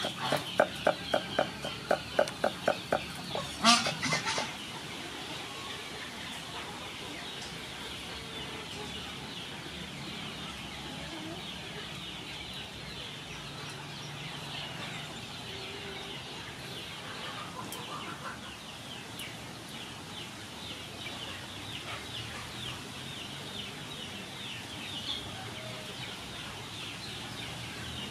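Farmyard poultry calling: a rapid, evenly paced run of loud calls for the first few seconds. Then a quieter steady background with faint high chirping.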